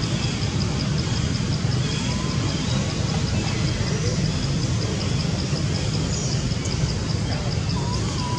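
Steady low background rumble with an even hiss above it. Through it runs a faint high-pitched pulsing that repeats evenly several times a second.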